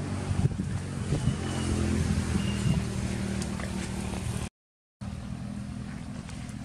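An engine running with a steady low hum. The sound cuts out completely for about half a second roughly two-thirds of the way through.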